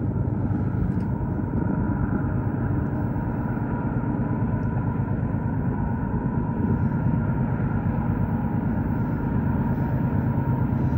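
Diesel locomotives of a freight train, led by a GE ES44AC, running with a steady low rumble as the train nears.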